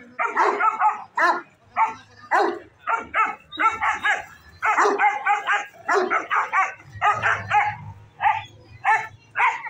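A black-and-tan dog barking repeatedly at another dog, in short loud bursts about twice a second, the agitated barking of a dog squaring up to a rival.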